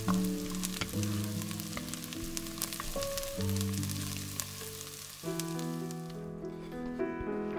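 Diced onions sizzling in melted butter in an enameled cast-iron pot, a steady hiss with many fine crackles. The onions are softening toward translucent. The sizzle drops away about six seconds in.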